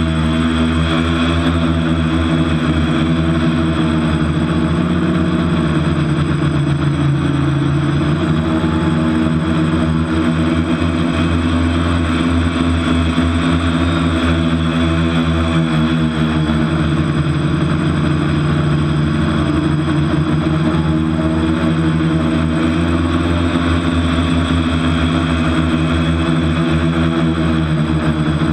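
TBS Discovery quadcopter's brushless motors and propellers whining steadily, heard close up from its onboard camera. The pitch rises and falls a little as the throttle changes. The quad is flying on a propeller the owner calls dodgy.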